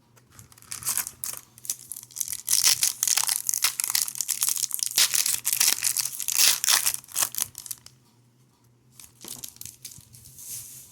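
A foil hockey-card pack wrapper being torn open and crinkled in the hands: a dense run of crinkling for several seconds, dying down to a few faint rustles near the end.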